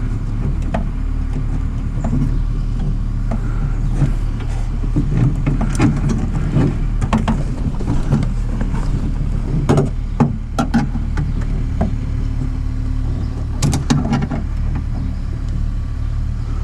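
Scattered small clicks and knocks of hands and fingers working the door latch cable's retaining clip inside a car door, with a few sharper ones about ten seconds in and again near fourteen seconds. Underneath runs a steady low mechanical hum.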